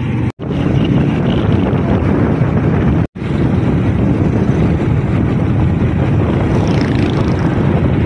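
Steady rush of wind on the microphone from a moving vehicle on the road, with engine and road noise underneath. The sound drops out for a split second twice, near the start and about three seconds in.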